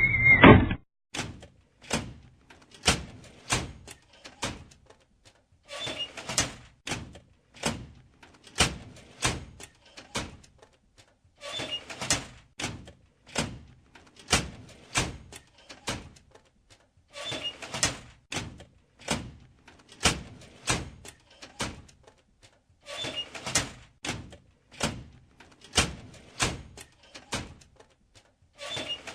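Door sound effect, repeated about five times: each time a short rattle, then a string of sharp clicks and knocks from the door and its lock.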